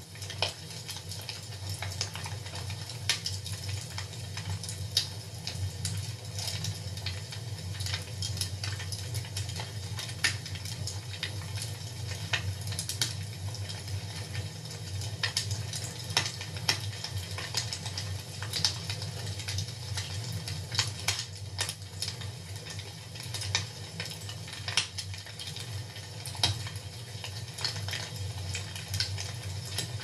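Fire crackling in a fireplace: a steady run of irregular sharp snaps and pops over a low, even rumble.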